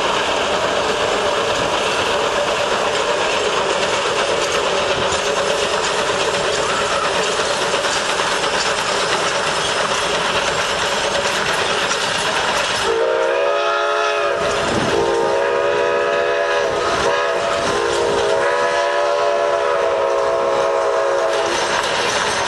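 Steam train running past with a steady rumble and clatter of its wheels and open passenger cars. About 13 s in, the locomotive's steam whistle sounds a series of chord-like blasts, long, long, short and a final long one that stops about 21 s in: the grade-crossing signal.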